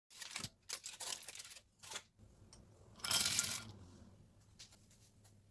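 Packaging being rustled and torn: several short rustling strokes, then a longer, louder rip about three seconds in.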